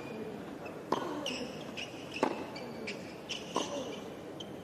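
Tennis baseline rally on a hard court: three sharp racket strikes on the ball about 1.3 seconds apart, with fainter ball bounces and short high squeaks of shoes on the court between them.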